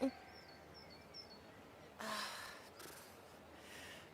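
Faint small-bird chirps, with a short breathy gasp-like whoosh about two seconds in.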